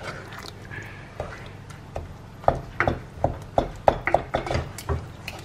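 Wooden spoon stirring a thick tomato and lentil mixture in a cooking pot, knocking against the pot's sides in a quick run of knocks, about three a second, from about halfway through.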